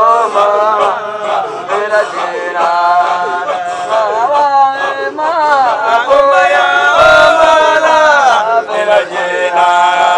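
A group of men chanting a Qadiriya dhikr together in Somali, one continuous melodic chant with voices rising and falling.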